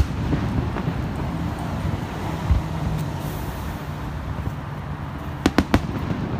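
Aerial fireworks shells bursting over a continuous low rumble: a sharp bang right at the start, a dull thump about halfway through, and three quick sharp cracks near the end.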